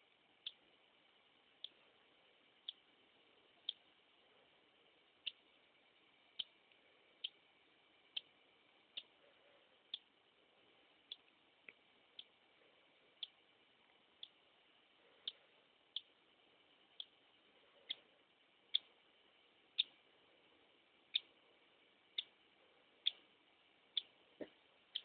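Hatching cockatiel chick making short, high ticking sounds about once a second, faint and regular, a little louder in the second half.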